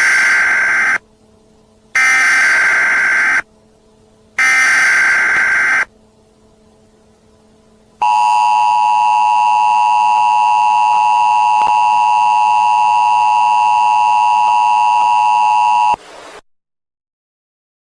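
Emergency Alert System broadcast tones. First come three bursts of SAME header data tones, each about a second and a half long with a second's gap between them. Then the EAS two-tone attention signal sounds steadily for about eight seconds and cuts off.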